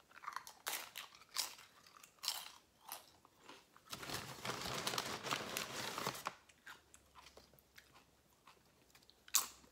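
Crisp tortilla chip bitten and crunched close to the microphone, in irregular crunches, with a denser stretch of crackling noise for about two seconds from about four seconds in and one sharp loud crack near the end.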